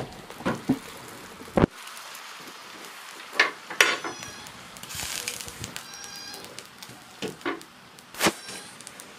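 Metal cookware being handled on and around a wood-burning stove: a string of sharp knocks and clanks, with a short high squeak about halfway. The loudest knock comes near the end, as a kettle is set down on the stove.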